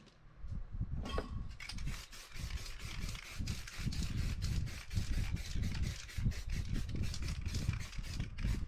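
Small stones shifted by hand at first, then an aerosol spray paint can hissing in many short bursts from about a second in.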